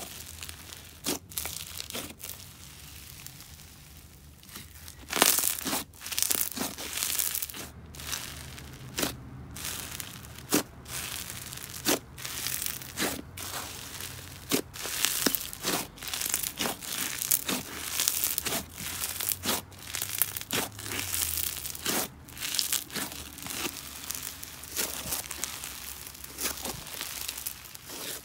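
Green snow fizz slime packed with fake snow, kneaded, pressed and stretched by hand, giving crisp crunching, sizzling crackles and scattered pops. The crackle softens for a couple of seconds early on, then a sharp pop about five seconds in is the loudest sound.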